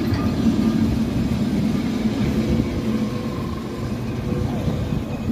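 Vintage street tram rolling past close by: a steady low rumble with a motor hum, easing off after about three seconds, followed by a car driving past on the cobbled street.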